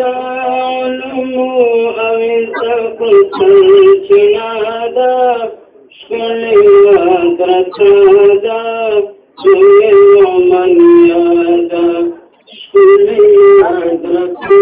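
A single voice chanting a Pashto naat, holding long wavering notes in phrases broken by three short pauses for breath.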